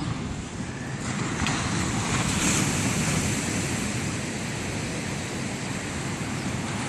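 Ocean surf breaking on the beach, a wash of noise that swells about a second in and then eases off, with wind buffeting the microphone.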